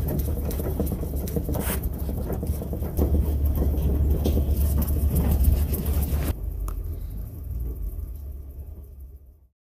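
Field sound from caged white mink on a fur farm: many small clicks and rattles of the animals on the wire-mesh cages over a heavy low rumble. The sound changes abruptly about six seconds in, then fades out near the end.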